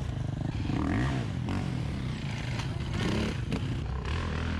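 Enduro dirt-bike engines running and revving, the pitch rising and falling a couple of times, with a few sharp clicks.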